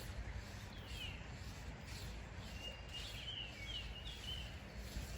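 Small birds chirping outdoors: short falling notes, with a quick run of them about three seconds in, over a steady low rumble.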